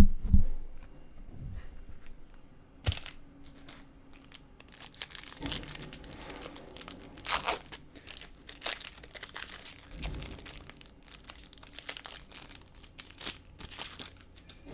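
Crinkling and tearing of a foil trading-card pack wrapper being handled and torn open, in irregular rustling bursts.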